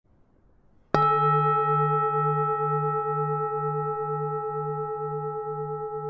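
A singing bowl struck once about a second in, then ringing on with several overlapping tones and a slow wobble in its low note, fading gradually.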